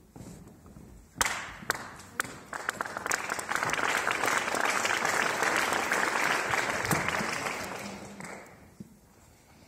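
Audience applauding. A few scattered claps come about a second in, build to full applause, and die away near the end.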